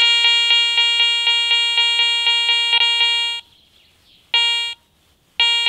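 Garrett ACE 400i metal detector with a Cors Cannon search coil giving its target tone for a small silver coin, a pulsing beep about three times a second. It sounds in a long run, then a short burst about four seconds in, and starts again near the end, as the coin is at the edge of the detection range.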